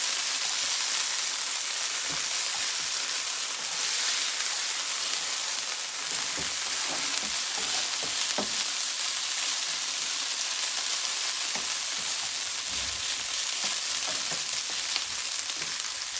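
Hash browns frying in a hot pan, a steady sizzle, with a few light taps of a utensil against the pan.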